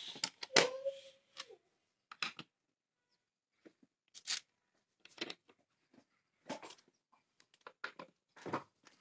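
Scattered short scrapes, rubs and clicks of hands handling a black plastic car air filter housing.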